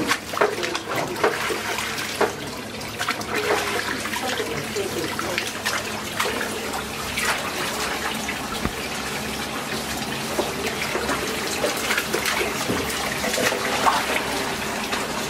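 Tap water running into a stainless-steel sink while freshly cooked udon noodles are rinsed and worked by hand in the water, with frequent splashes throughout.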